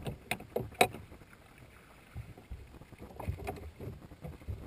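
Knocks and thumps on a bass boat's deck and hull as an angler fights a bass and lands it by hand over the side: a few sharp knocks in the first second, then a cluster of softer knocks and thumps about three seconds in.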